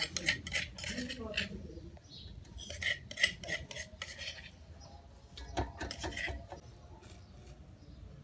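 A metal spoon clinking and scraping against a steel bowl as chilli paste and spices are put in. It comes in three short bursts of clatter: at the start, about three seconds in, and about six seconds in.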